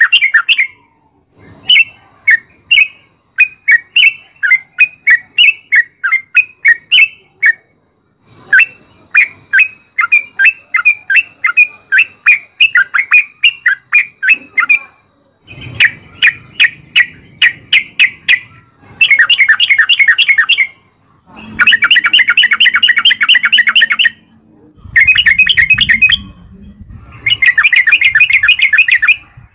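Yellow-vented bulbul (trucukan) calling in long runs of rapid chirping notes, the fast rolling 'ropel' song used as a lure. The first half has separate chirps a few per second; from about halfway the notes run together into dense rattling rolls of a couple of seconds each, with short pauses between.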